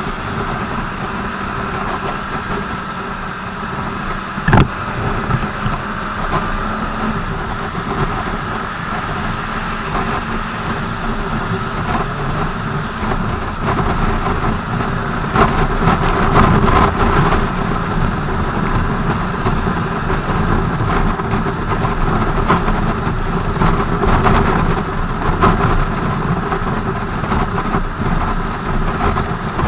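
BMW R 1200 GS boxer-twin motorcycle being ridden, its engine running under steady road and wind noise, with a single sharp knock about four seconds in.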